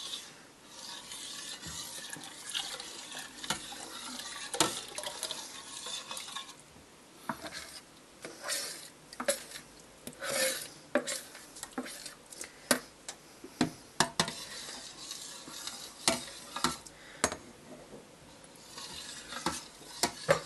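A metal spoon stirring a boiling grape-syrup pudding mixture in a stainless steel pot, over a steady bubbling hiss. There are many sharp clinks of metal against the pot, thickest through the middle.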